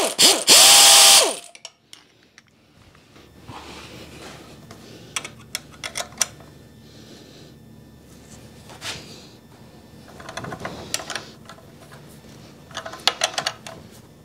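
A power drill runs in two short bursts, each winding up and then down, driving an up-pipe flange bolt. The rest is quieter clicking and clinking of metal hand tools on the bolts, in short clusters.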